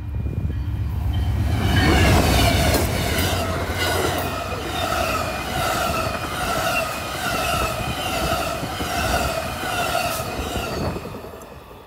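Amtrak passenger train of bilevel Superliner cars passing close by at speed. It rises to a loud rush and rail clatter within about two seconds, with a pulsing ringing that repeats somewhat under twice a second, and dies away near the end as the last cars go by.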